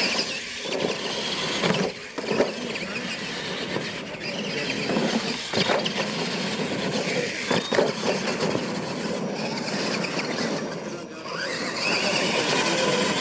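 Two radio-controlled monster trucks racing over dirt, their electric motors whining and revving, with tyres scrabbling on the dirt and several sharp knocks. Near the end the motor whine climbs in pitch.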